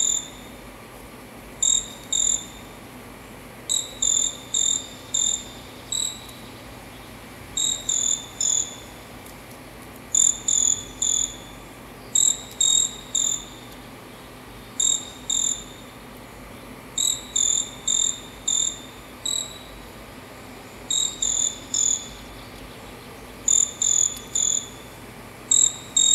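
Short-tailed pygmy-tyrant (caçula, Myiornis ecaudatus) singing: short, high chirps in quick groups of two to four, repeated every second or two.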